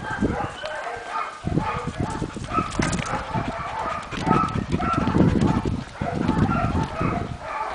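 Many short, high animal calls repeating throughout, over the low thumps and rustle of a handheld camera being carried while walking.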